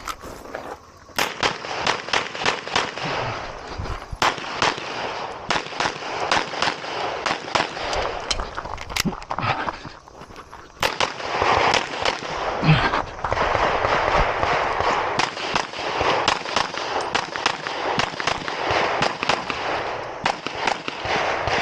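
Rapid pistol fire from a 9mm Canik METE SFT Pro during a timed competition stage run: strings of fast shots broken by short pauses, with a longer lull about ten seconds in.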